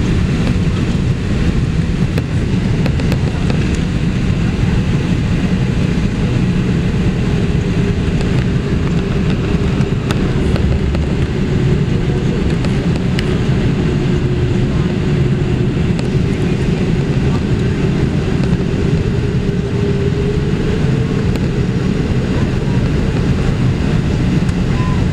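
Steady engine and airflow noise heard inside the cabin of a Boeing 787-8 climbing out after takeoff, heaviest in the low range. A faint steady hum rises above it through the middle stretch.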